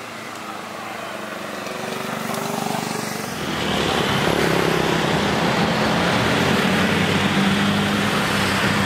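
Road traffic: motorcycles and a car passing on the street, their engines building up and then running loud from about three and a half seconds in.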